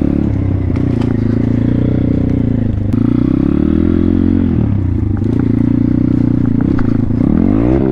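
A 2019 Thumpstar 140cc pit bike's single-cylinder four-stroke engine runs while being ridden, its pitch rising and falling with the throttle several times. Scattered short clicks sound over it.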